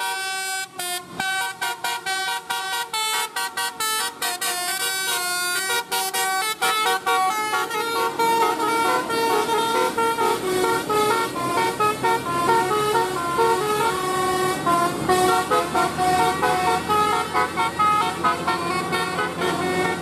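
Basuri multi-tone 'telolet' bus horn playing a quick melody of short, stepping notes. About eight seconds in, the tune changes to longer held notes as another bus sounds its horn.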